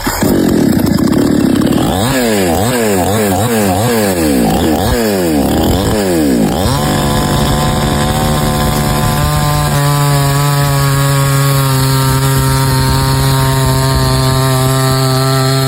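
Chainsaw engine revved up and down repeatedly, its pitch rising and falling about once a second. From about seven seconds in it is held at a steady speed.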